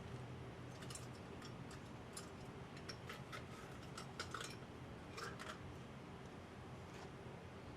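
Light, irregular clicks and ticks, clustered in the first five or so seconds, over a faint steady hum.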